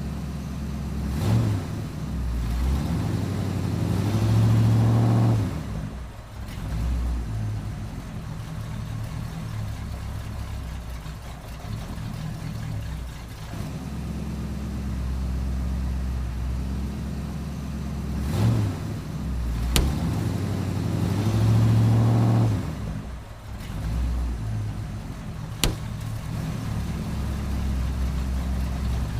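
Car engine running and revving up twice, about four seconds in and again past the middle. Two short sharp cracks come later.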